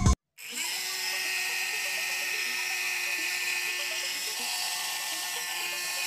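Background music cuts off at the start. About half a second in, the small DC motor of a homemade jet fan starts up on 9 volts and spins its metal impeller inside a tube, giving a steady high-pitched whine.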